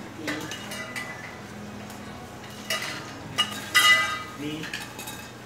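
Metal tubes and parts clinking and clanking as they are handled and fitted together by hand, with a few sharp ringing clanks, the loudest about three to four seconds in.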